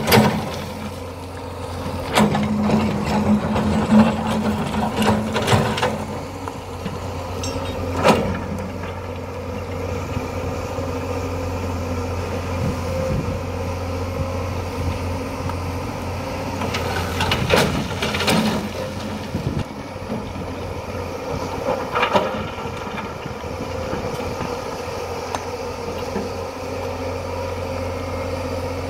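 Hydraulic excavator's diesel engine running steadily under working load, with several sharp knocks and scrapes of the bucket in the sand, a cluster of them early and a few more around the middle.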